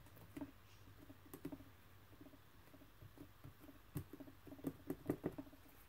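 Faint taps and light clicks of paper die-cut pieces being picked up, slid and set down by hand on a cardboard box lid, with a few slightly louder taps about four to five seconds in.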